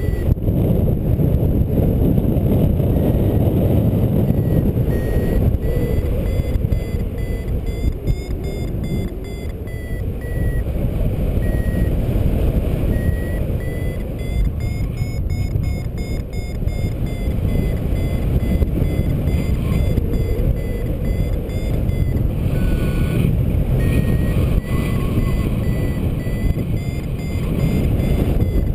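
Wind buffeting the camera microphone in flight under a paraglider, with a variometer beeping in short repeated tones throughout. The beep pitch shifts up and down as the climb rate changes, a sign the glider is in rising air.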